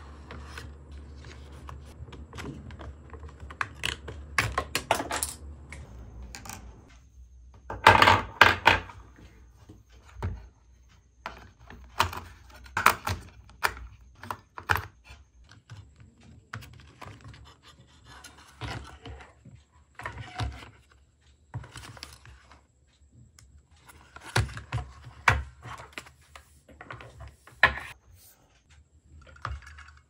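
Plastic handling noises from a toy RC car: a string of sharp clicks, knocks and rattles as the battery cover is taken off its underside and AA batteries are pushed into the spring contacts, loudest about eight seconds in.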